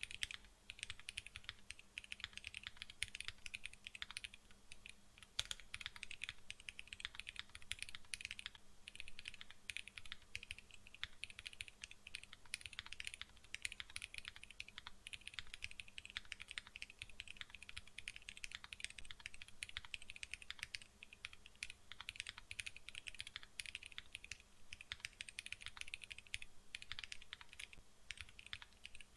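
Continuous typing on a Bakeneko65 custom mechanical keyboard with an aluminium plate and 50A O-ring mount, fitted with lubed and filmed Naevy R2.1 switches: a steady stream of key strokes.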